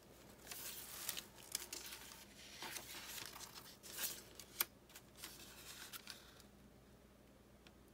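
Paper pages of a handmade journal being turned and handled by hand: soft rustling and crinkling with a few sharp clicks, going quieter in the last second or so.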